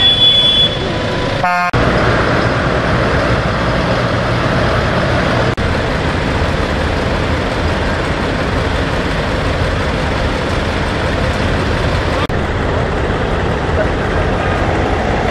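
Heavy diesel engines, most likely farm tractors, running steadily in a convoy. A horn sounds at the start and again near the end.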